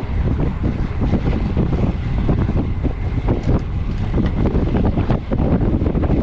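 Wind buffeting the microphone of a low bike-mounted camera at riding speed, a steady rumble with irregular knocks and rattles throughout.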